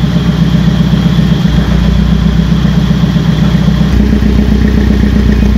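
Pilgrim Sumo kit car's engine running steadily, an even drone whose lowest note shifts slightly about four seconds in.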